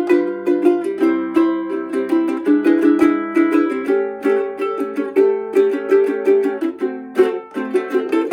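Tenor resonator ukulele of bird's eye maple with an aluminum resonator cone, strummed chord style in a steady rhythm, with the chords changing every second or so.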